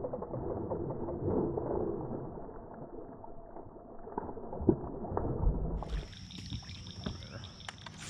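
A hooked fish splashing at the surface beside a kayak, with water sloshing and a few knocks, the largest thump and splash about five seconds in. Shortly after, the sound changes to a quieter scene with a steady high tone.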